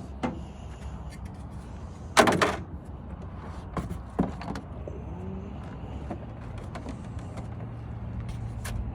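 Packaging and parts of a Starlink kit being handled during unboxing: one loud rustle about two seconds in and a few sharp clicks and knocks around four seconds in, over a steady low hum.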